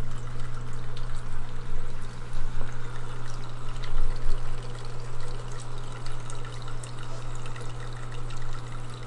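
Reef aquarium water circulating, trickling and splashing steadily, with a steady low hum underneath.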